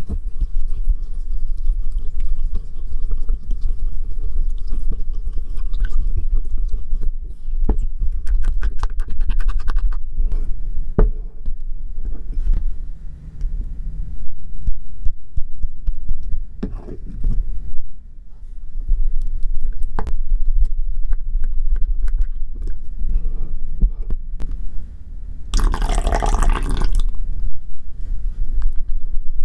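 A red silicone spatula stirring and scraping a wet slime mixture in a small glass bowl, with scattered clicks of the spatula against the glass. Near the end comes a louder rushing noise lasting about two seconds.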